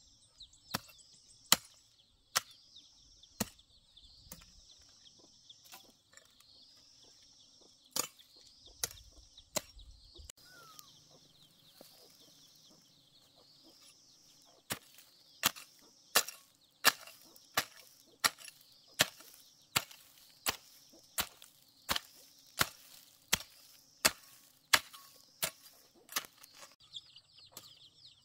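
A hoe blade chopping into dry, hard ground, each stroke a sharp strike. The strokes come slowly and unevenly at first, then about halfway in settle into a steady rhythm of nearly two a second. A repeated high chirping sounds in the background in the first half and again at the very end.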